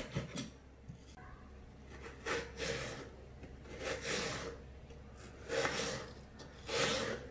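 Kitchen knife slicing through raw peeled potato on a wooden chopping board, cutting it into fry strips: four slicing strokes about a second and a half apart, each lasting about half a second.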